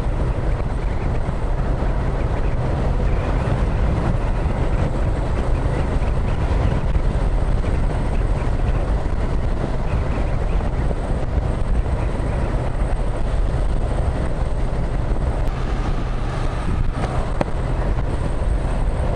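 Yamaha MT-07's parallel-twin engine running at a steady cruising speed, mixed with wind and road noise over the microphone.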